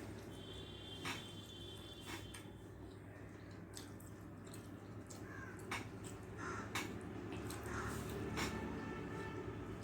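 Faint eating sounds: scattered small clicks and smacks of rice and fish curry being eaten by hand, over a steady low room hum, with a bird calling briefly in the background.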